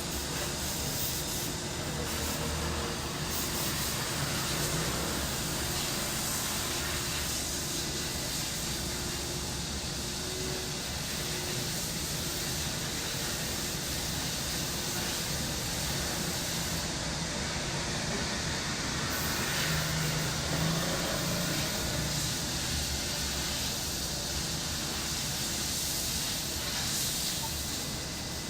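Steady chorus of cicadas buzzing, with a low hum of distant traffic underneath.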